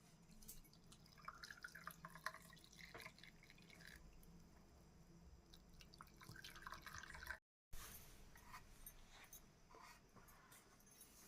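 Faint dripping and trickling of liquid with small scattered clicks, cut off briefly about seven seconds in.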